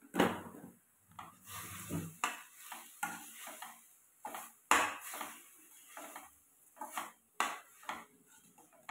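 Steel spatula scraping and clinking against a stainless steel kadai as chopped onions with chili powder are stirred, in irregular strokes, the sharpest just after the start and about five seconds in.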